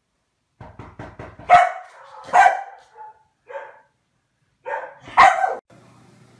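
Komondor barking: a quick run of light clicks, then about six separate barks, three of them loud and the rest softer.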